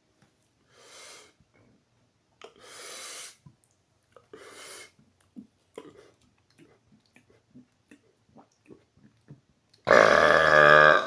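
A man gives three quick breaths and some small mouth clicks while working up a burp. About ten seconds in comes a single deliberate, very loud, deep belch, lasting about a second. The sound meter reads it at 120.5 decibels.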